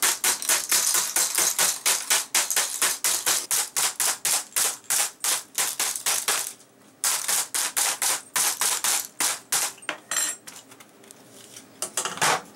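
Rapid tapping of a butter knife's back on an upturned plastic food dehydrator tray, several sharp taps a second, to knock stuck dried banana chips loose. The tapping pauses about six and a half seconds in, resumes, then thins out near the end.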